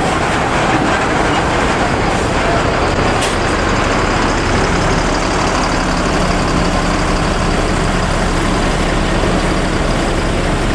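A bus's diesel engine running steadily, with a constant wash of road and traffic noise.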